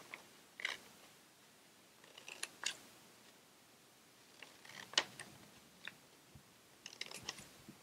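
Scissors cutting into folded copy paper in short, separate snips with pauses between them. The sharpest snip comes about five seconds in, and a quick run of snips follows near the end.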